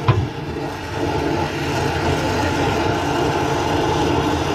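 Oxy-acetylene torch flame playing on the sheet-steel boot floor, a steady hiss with a low rumble. A sharp click comes right at the start.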